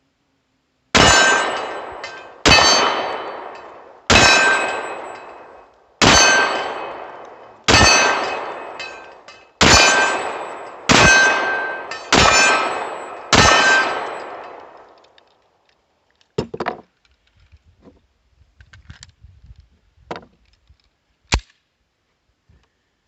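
Nine pistol shots from a Sccy DVG-1 9mm firing Tula steel-cased ammunition, one every second or two. Each shot has a long ringing tail. After the string stops come a few sharp clicks of handling.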